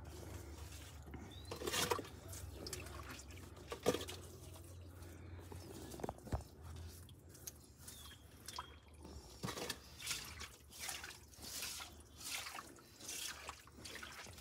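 Water splashing and dripping in a stone-lined spring well (naula) as it is scooped out and cleaned. A few separate knocks and splashes come in the first half, then a regular splash about every two-thirds of a second in the second half.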